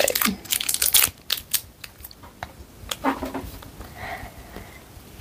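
Plastic packet of air-dry clay crinkling and tearing as it is opened, a quick run of sharp crackles in the first second and a half, then scattered smaller crackles.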